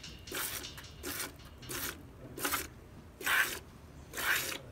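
Cow hand-milked into a plastic bucket: streams of colostrum squirt into the pail in about seven short spurts, unevenly spaced half a second to a second apart.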